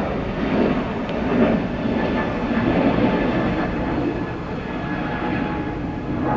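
Jet airliner engine noise, a steady rumble from a departing jet climbing out.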